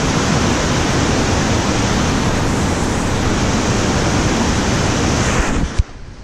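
Loud, steady roar of a big whitewater rapid pouring over a ledge close by. About five and a half seconds in it cuts off suddenly, leaving a much quieter flow of water.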